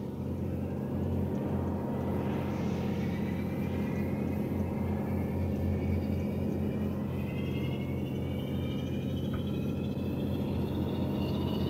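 Fairey Rotodyne's Napier turboprop engine starting: a steady low drone under a turbine whine that climbs slowly in pitch as the engine spools up.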